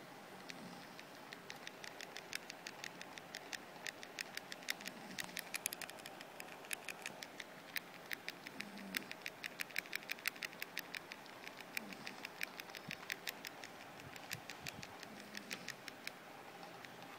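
Plastic keys of a Casio fx-991MS scientific calculator clicking as they are pressed over and over, several a second, quickening toward the middle. This is the DEL key being tapped repeatedly to erase a long string of 0303… digits from the display.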